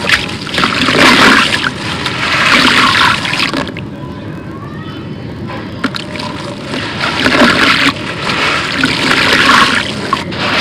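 Crumbled dry concrete grit dropped by hand into shallow water in a plastic tub, grit showering and splashing into the water. It comes in two long pours, the second starting about seven seconds in, with a quieter stretch between.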